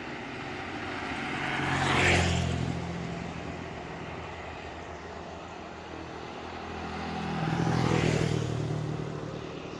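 Two motor vehicles drive past one after the other on an uphill road, engines working as they climb. Each one swells to its loudest as it passes, the first about two seconds in and the second about eight seconds in, then fades.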